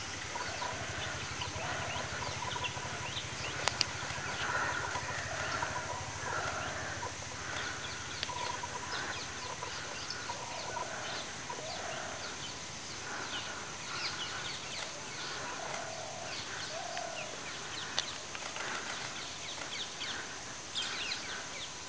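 Birds calling and chirping repeatedly over a steady high hiss, with a few sharp clicks.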